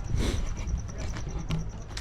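Rustling and a few light knocks as a wooden window frame is handled and pushed into a boat's window opening.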